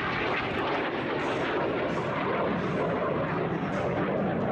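BAe Hawk 127 jet trainer's Rolls-Royce Adour turbofan, a loud steady rushing jet noise that sinks lower in pitch as the jet flies away.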